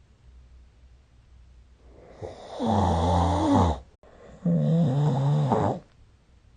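A sleeping person snoring: after about two seconds of quiet, two loud snores in quick succession, each about a second and a half long, with a wavering pitch.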